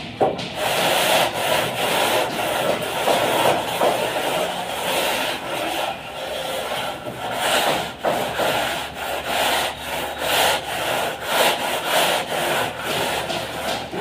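A straightedge rule scraped back and forth across fresh cement plaster on a wall to level it (screeding). It makes a continuous scraping that swells and eases with each stroke.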